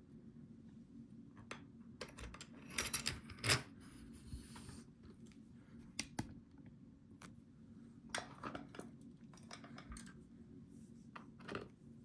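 Small metal clicks and light clatter of an ASSA 700 lock's parts, grub screws and tools being handled during reassembly: a burst of clicks about three seconds in, the loudest near the middle of it, then scattered single clicks and a second short cluster later on, over a steady low hum.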